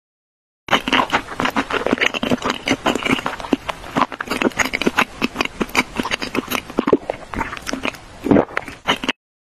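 Close-miked eating: dense, irregular chewing and crunching of snack food, starting abruptly about a second in and cutting off abruptly near the end.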